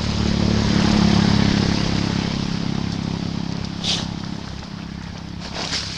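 A motor engine running with a steady low hum that is loudest about a second in and then slowly fades. A short high squeak sounds about four seconds in, with a few faint high chirps near the end.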